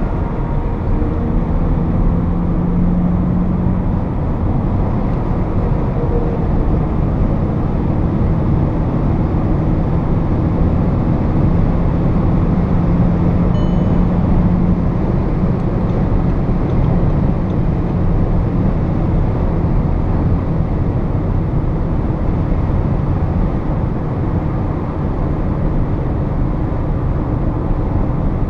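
Inside the cabin of a 2016 VW Passat B8 with the 2.0 TDI four-cylinder diesel, cruising on a motorway at about 125–138 km/h: a steady mix of engine drone, tyre roar and wind noise.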